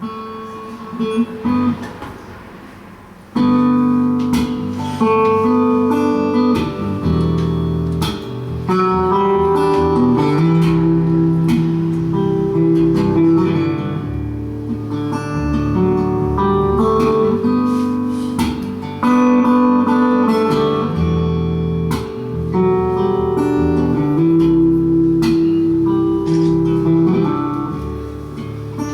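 Guitar playing a song's instrumental introduction: soft picking for the first few seconds, then fuller, louder chords from about three seconds in.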